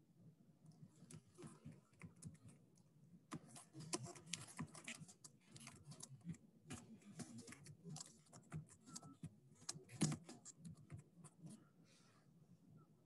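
Faint typing on a computer keyboard, quick key clicks in irregular runs, picked up over a video-call microphone.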